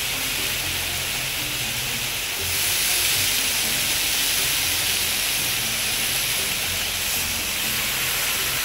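Turkey bacon sizzling on a hot Blackstone 22-inch flat-top griddle as raw strips are laid down, a steady hiss that grows a little louder about two and a half seconds in.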